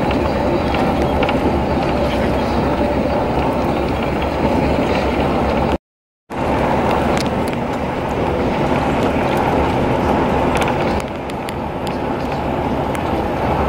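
Steady engine and road noise of a moving vehicle travelling along a highway. The sound cuts out to silence for about half a second around six seconds in, then resumes.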